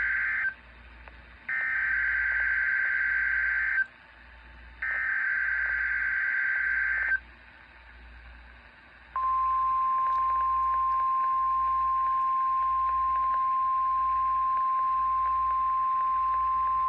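Emergency Alert System SAME header: the end of one digital data burst, then two more harsh, buzzing bursts of about two seconds each, separated by short gaps. About nine seconds in, the steady single-pitch NOAA Weather Radio alert tone starts and holds, announcing a severe thunderstorm watch.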